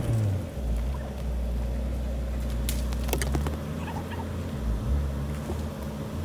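Pickup truck engine running at low revs: the revs drop right at the start, settle into a steady low hum, and pick up briefly about five seconds in. A few sharp clicks sound about halfway through.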